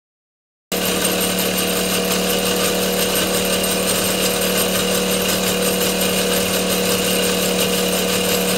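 A Wilesco model steam tractor running: a steady, fast mechanical whirr with a constant low hum and higher whine. It starts abruptly about a second in and does not change.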